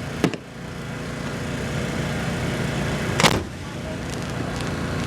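Two sharp fireworks bangs about three seconds apart, the second the louder, over a steady engine-like hum.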